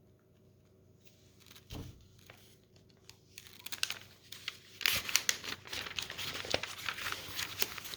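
Lego pieces being handled and rummaged through: a single knock near the start, then from about halfway a dense run of rustling and small plastic clicks.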